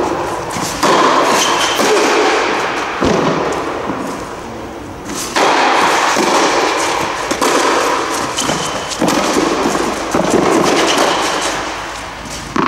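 Tennis on a clay court: dull thuds of racket strikes and ball bounces over a loud rushing noise that starts and stops abruptly several times.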